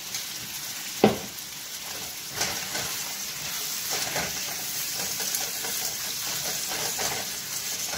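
Shredded chicken sizzling in hot oil in a nonstick frying pan while a silicone spatula stirs and scrapes it around. A single sharp knock comes about a second in.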